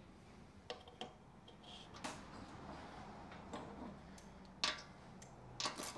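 A few faint metal clicks and knocks as the steel rocker cover of a Honda GX390 engine and its bolt are handled and seated, the loudest about two thirds of the way through. Near the end a quick run of even clicks starts, as a ratchet begins driving the cover bolt.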